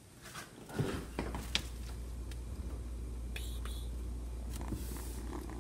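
A cat purring, a steady low rumble that starts about a second in, with a few light clicks and rustles.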